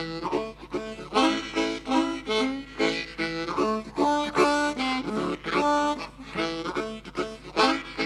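Blues harmonica, a Hohner Marine Band 364 in low D, played fast. It gives choppy, rhythmic runs of short notes and chords, several a second, blown and drawn on the low holes.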